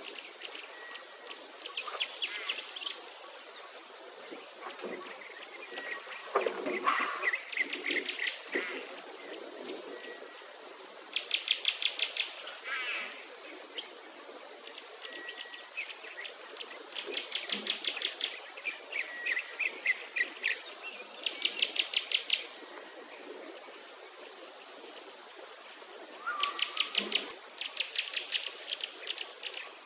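Birds singing in short, very fast trills repeated every few seconds, over a steady high insect buzz.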